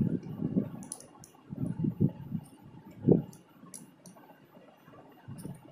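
Hands knotting macrame cord, making irregular soft rubbing and handling thuds with a few light, sharp clicks scattered among them.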